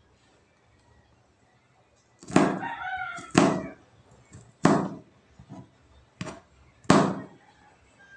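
Kitchen knife chopping garlic on a plastic cutting board: a handful of sharp chops, uneven in spacing, starting about two seconds in. A rooster crows once, briefly, about two and a half seconds in, over the first chops.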